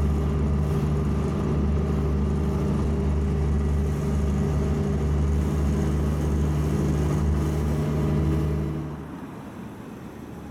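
A motor engine running at a steady speed, a low even drone. It drops away about nine seconds in, leaving a quieter hiss.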